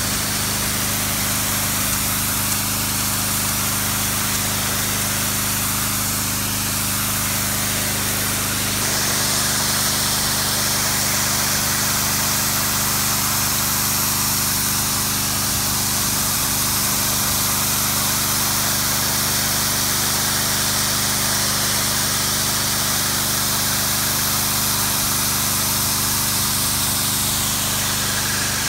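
A Generac 2500 PSI pressure washer's 6-horsepower gas engine running steadily while its high-pressure jet hisses against concrete. About nine seconds in, the engine note shifts and the spray hiss grows stronger.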